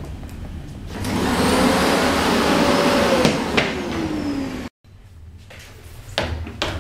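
A vacuum cleaner's motor running with a loud rushing noise, its whine rising and then sinking before it cuts off abruptly. Footsteps on wooden stairs follow near the end.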